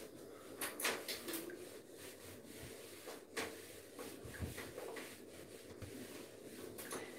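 Whiteboard duster wiped across a whiteboard in a series of short rubbing strokes, with a soft knock partway through.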